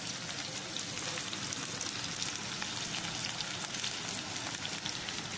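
Chopped onion frying in a pan, a steady sizzle with fine crackling.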